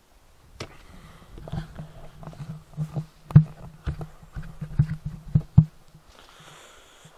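Irregular knocks, clicks and rustling of a handheld camera being moved and handled close to its microphone, the loudest knock about three and a half seconds in, dying down near the end.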